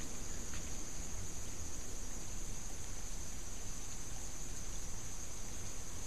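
Water spouting out of a cracked concrete retaining wall and splashing down, a steady rush of running water: groundwater forced out after heavy typhoon rain.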